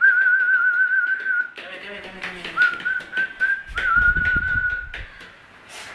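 A person whistling to call a puppy: three long, steady notes with a slight waver, separated by short breaks.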